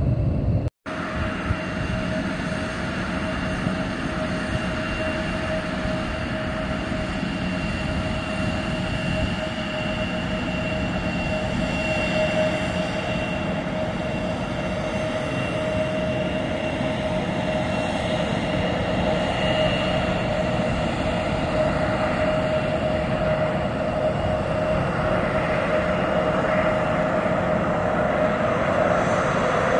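Jet engines running steadily with a high whine, swelling slightly near the end, with a brief sudden dropout about a second in.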